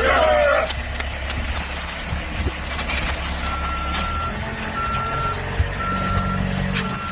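Telehandler engine running steadily, with its reversing alarm beeping about once a second from a few seconds in as the machine backs up.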